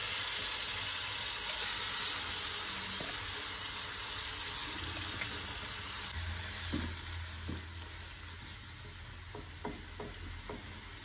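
Blended shallot, garlic and ripe pineapple spice paste sizzling in hot oil in a frying pan, the sizzle slowly dying down. From about seven seconds in, a few light knocks and scrapes of the spatula against the pan as the paste is stirred.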